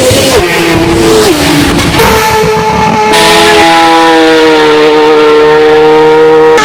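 Racing motorcycle engines at high revs. The pitch steps down twice in the first second and a half, the sound changes abruptly about two seconds in, and the engine then holds a high, near-steady note.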